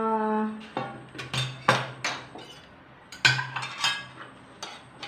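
Stainless steel basin, spoon and plates clattering as they are handled and set down on a wooden table: about seven separate knocks and clinks.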